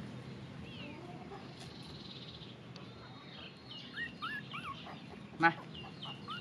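High-pitched animal calls: many short chirping notes rise and fall from about four seconds in, with one short loud squeak about five and a half seconds in, over a steady background hiss.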